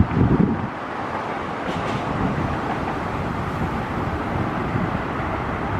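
Steady outdoor noise of wind on the microphone and traffic, with low rumbling gusts of wind buffeting in the first half-second.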